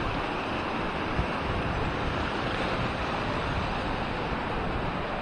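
Steady rushing of a fast-flowing mountain river over rocks.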